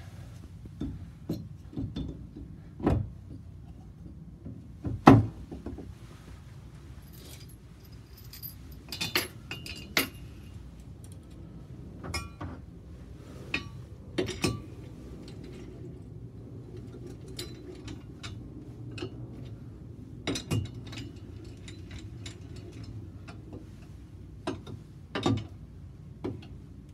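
A Harley-Davidson M8 cylinder head being set onto the aluminium plate of a flow-bench fixture and clamped down with a T-handle wrench: scattered sharp metal knocks, clinks and clicks, the loudest about five seconds in, over a steady low hum.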